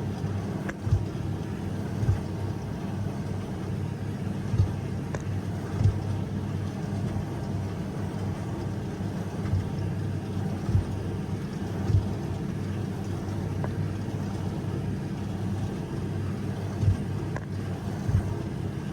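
Tractor engine running at a steady working drone, heard from inside the cab, with a short knock or thump every second or two.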